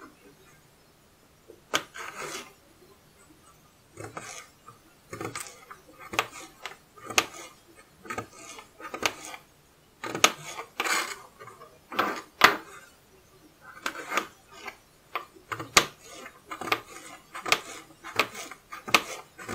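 Small kitchen knife cutting carrots into chunks on a plastic cutting board: irregular sharp knocks of the blade going through the carrot onto the board, starting about two seconds in.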